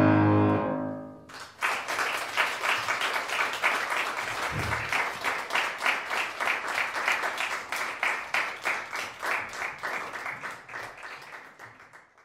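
The closing chord of piano and alto saxophone dies away. From about a second and a half in, an audience applauds, fading out near the end.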